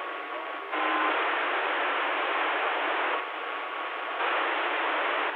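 CB radio receiver hiss with no voice on it. The static steps louder about a second in, drops back around three seconds and rises again, as signals come and go on the channel, with faint steady whistling tones under the noise.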